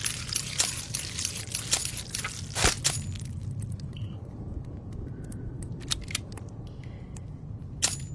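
Irregular sharp clicks and snaps over a steady low hum. They come thick for the first three seconds, then sparse and faint, with two louder cracks near the end.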